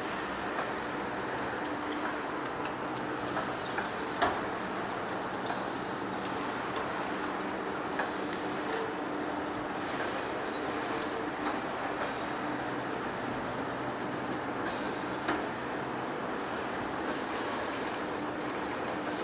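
Heavy-duty face lathe running as it turns a large rotor shaft: an even mechanical running noise with a steady hum, broken by occasional sharp clicks, the loudest about four seconds in and again near fifteen seconds.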